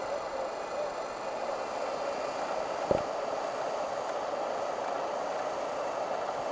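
Steady rush of a fast-flowing river, with a single short knock about three seconds in.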